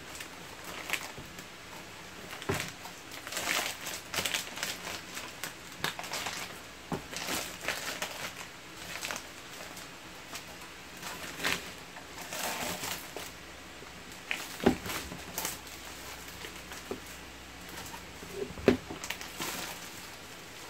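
Clear plastic wrapping crinkling and rustling as a computer power supply is pulled out of its bag and box, with a couple of sharp knocks in the second half.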